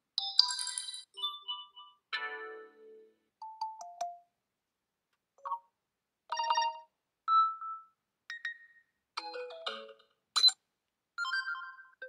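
Samsung Galaxy S23 FE's built-in notification sounds previewed one after another through the phone's speaker. There are about ten short pitched chimes and blips, each lasting under a second, with brief silences between them.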